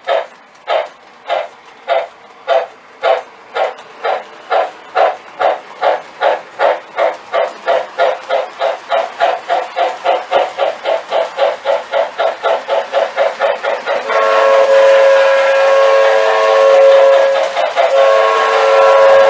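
Steam chuffing from the sound system of an MTH Rail King Pennsylvania Railroad 6-8-6 turbine model locomotive. The chuffs speed up steadily from about two to about four a second as the locomotive gathers speed. About 14 seconds in, a multi-note steam whistle sounds and is held, with a short break a few seconds later.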